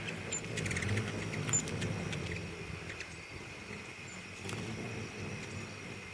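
Hummingbirds chattering, with a quick run of sharp ticking calls between about half a second and a second in and a few single high chips later, over a steady low hum.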